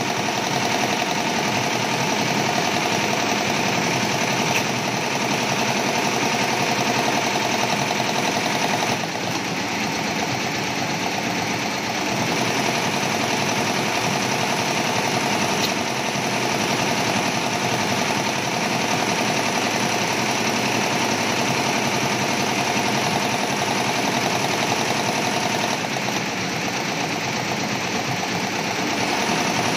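Multi-head computerized embroidery machine running, one needle stitching steadily through the fabric with an even, fast mechanical beat.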